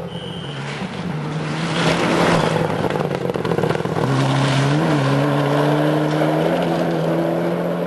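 Rally cars passing at speed on a loose dusty stage. Engine noise builds over the first two seconds, and from about four seconds in a steady, high engine note is held.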